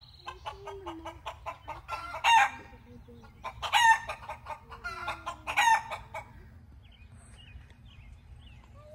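A chicken clucking rapidly, breaking three times into a loud call about a second and a half apart. Faint songbird chirps follow near the end.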